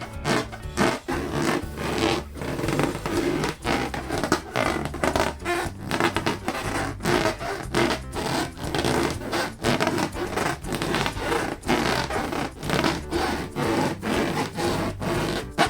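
Latex balloons being rubbed and squeezed by hand: a dense, irregular rubbing and scraping with many brief breaks.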